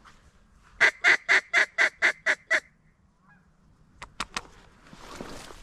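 A rapid string of about eight mallard-style quacks, roughly four a second, calling to an incoming duck. A few sharp clicks follow about four seconds in.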